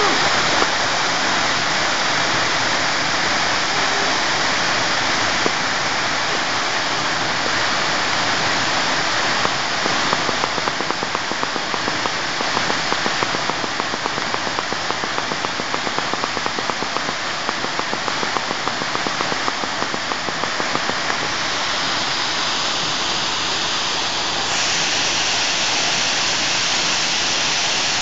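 Waterfall pouring into a rock plunge pool: a steady, even rush of falling water.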